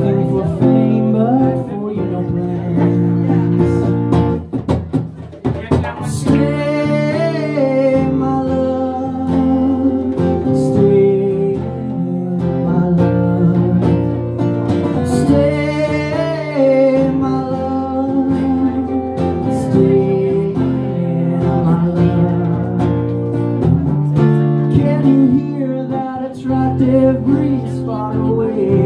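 A man singing into a microphone while strumming an acoustic guitar, a live solo song.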